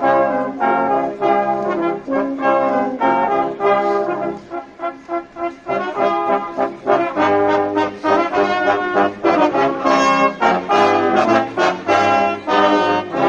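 Brass band playing a tune, trumpets and trombones together in a steady rhythm, with a lighter passage about halfway through before the full band comes back in.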